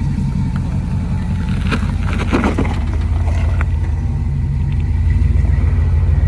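Jeep engine running at low revs as it crawls over rock, with a brief mid-pitched noise about two seconds in. Near the end the engine gets louder as it is given more throttle.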